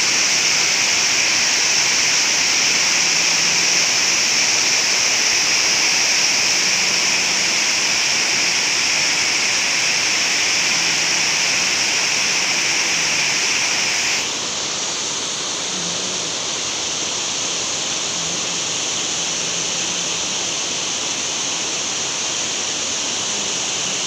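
Water pouring over a low concrete weir and churning at its foot: a steady, loud rush. About two-thirds of the way through it drops a little and loses some of its hiss.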